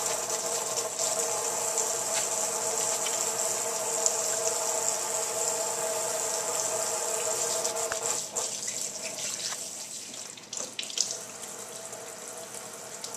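Kitchen faucet running into a stainless steel sink, with hands being washed under the stream. The water noise is steady, then drops to a softer level about eight seconds in, with a few small clicks and splashes.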